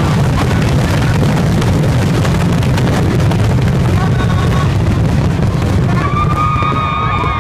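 A fireworks finale barrage: shell bursts follow each other so fast that they merge into a continuous low rumble, with crackling on top. About six seconds in, a crowd starts whooping and cheering over the bursts.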